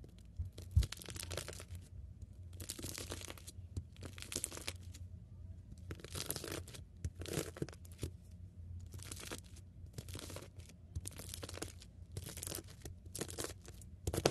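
Knife blade slicing down through a block of small blue beads, about a dozen short crackling, crunching strokes at roughly one a second. A sharp thump about a second in, over a faint steady low hum.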